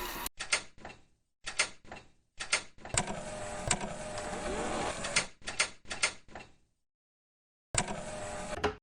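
A mechanical sound effect: a string of short clicking, rattling bursts, one lasting about two seconds in the middle, each cutting off sharply into silence.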